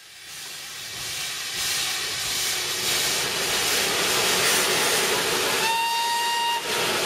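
Steam locomotive letting off steam: a loud, steady hiss that fades in over the first two seconds. About five and a half seconds in, a steam whistle gives one short blast on a single steady note, lasting just under a second.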